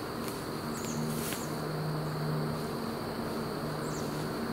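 A flying insect, such as a fly, buzzing close by with a low hum that comes and goes in stretches of about a second, with faint crunches of footsteps in dry leaves.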